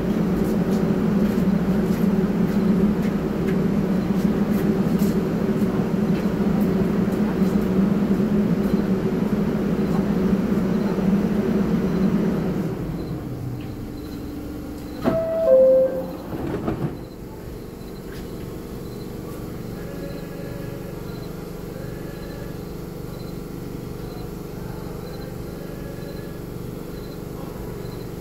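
An R44 subway train standing at the platform hums steadily and loudly, and the hum dies down about thirteen seconds in. About fifteen seconds in, a two-note descending door chime sounds, and the doors slide shut with a knock. A quieter steady hum follows.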